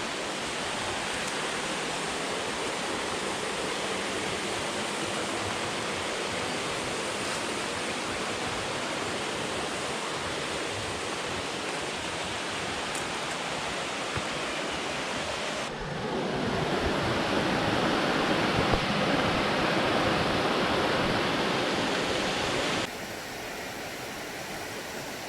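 Creek water rushing steadily. About two-thirds of the way through it changes abruptly to a louder, fuller rush for several seconds, then drops suddenly to a quieter, thinner rush near the end.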